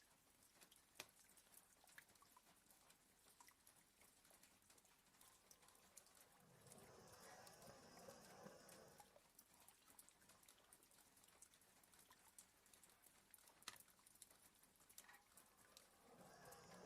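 Faint, slow snoring breaths of a sleeping dog: one long breath about seven seconds in and another starting near the end, with scattered light taps of rain on a window between them.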